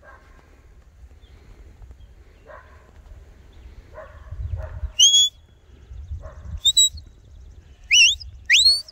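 A handler's sheepdog whistle commands: four short, loud whistles in the second half, the last two rising sharply in pitch.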